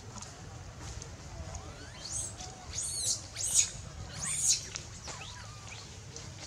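Infant long-tailed macaque giving four high-pitched, arching squeals, one after another between about two and four and a half seconds in: an infant's distress calls for its mother.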